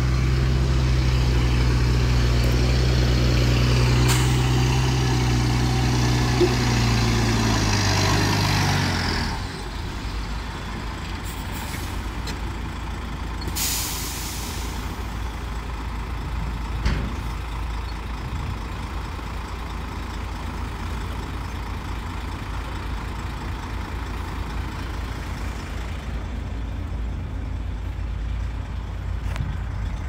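Heavy diesel engine running at steady revs, then dropping away about nine seconds in to a quieter low rumble. A short hiss of released air follows about four seconds later, and a single knock comes a few seconds after that.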